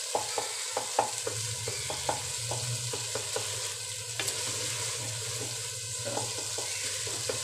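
A wooden spoon stirs a tomato-and-spice masala frying in oil in a clay handi, knocking and scraping against the earthenware pot, over a steady sizzle. The knocks come about three a second for the first few seconds, then thin out.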